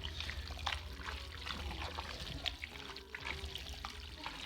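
Spoon stirring a thick, wet casserole mix of egg noodles, condensed soup, vegetables and tuna in a bowl: soft wet squelching with scattered light clicks of the utensil against the bowl.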